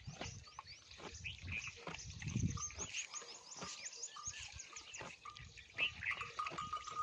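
A camel chewing, with irregular wet clicks and smacks and a few low rumbles from the animal, the loudest about two and a half seconds in. Small birds chirp quickly in the background for a second or so.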